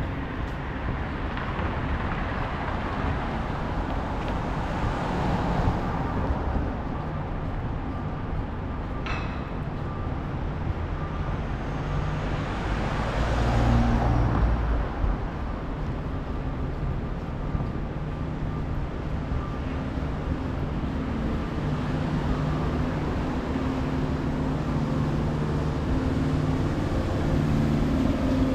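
City street traffic: a steady wash of cars and engine hum, with one vehicle swelling past about halfway through and a brief sharp click about a third of the way in.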